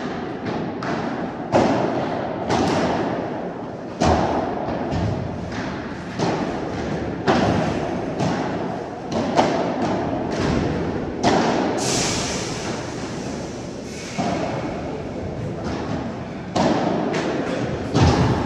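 Padel rally: the ball is struck back and forth with padel rackets and bounces on the court, giving a string of sharp pops at irregular intervals, each echoing in the indoor hall.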